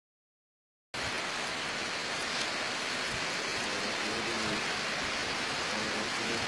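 Steady rushing hiss of heavy monsoon rain and a swollen, flooded river, starting suddenly about a second in after silence.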